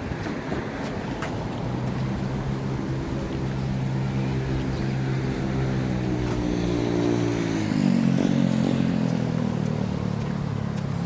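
An engine passes by: a steady hum builds from about two seconds in, is loudest around eight seconds, and drops in pitch as it goes past.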